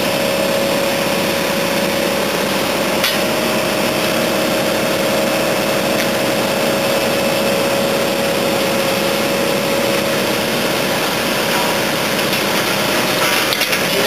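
Tracked asphalt paver's engine running steadily under a constant whine, with a couple of sharp clicks about three and six seconds in.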